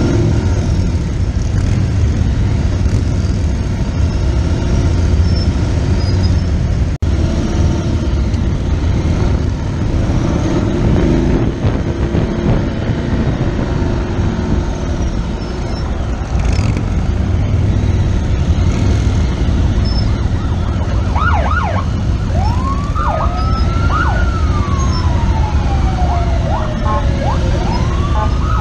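Police motorcycle engines running together in a riding formation, a steady low rumble. About three-quarters of the way through, motorcycle sirens start: a few quick yelps, then a slow wail that rises and falls, beginning to rise again near the end.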